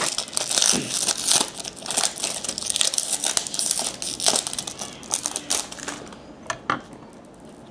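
A trading-card pack wrapper being torn open and crinkled by hand: a dense, continuous crackle that dies away about six seconds in to a few faint clicks as the cards are handled.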